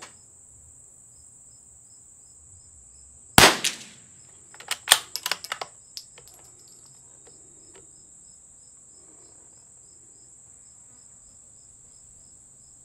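A single shot from a CZ 455 bolt-action .22 LR rifle about three seconds in, followed a second later by a quick run of metallic clicks as the bolt is worked to eject and chamber the next round. A steady high insect drone runs underneath.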